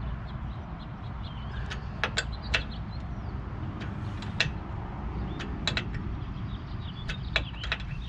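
Combination wrench turning a nut on a bolt used as a makeshift press to force out a seized brake caliper pad pin, giving scattered sharp metal clicks over a steady low rumble.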